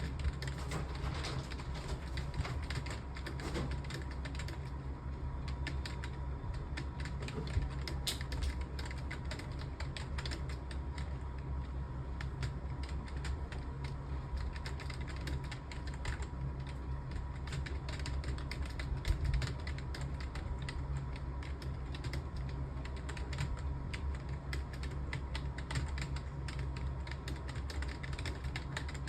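Continuous fast typing on a computer keyboard: a steady, unbroken stream of key clicks over a low steady hum.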